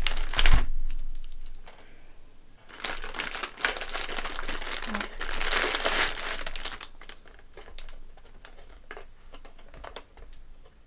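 Plastic snack packaging crinkling and rustling as a cookie package is opened and handled. The crackling is densest in the middle stretch, after a couple of louder knocks at the start, and thins to a few light clicks near the end.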